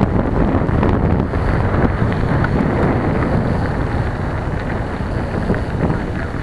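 Wind buffeting the microphone of a camera on a moving bicycle, a steady loud rumble mixed with the tyres running over a gravel towpath.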